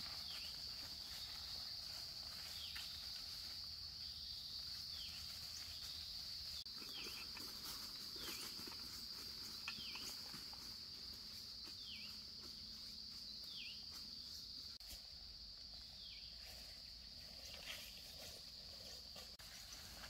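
Forest insects keep up a steady high-pitched drone, while a bird repeats a short whistled note that drops in pitch, once every second or two.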